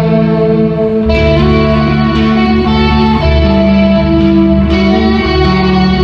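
Live rock band playing loud through the PA: electric guitar with effects over bass guitar, holding sustained chords with no vocals. A new, brighter chord comes in about a second in.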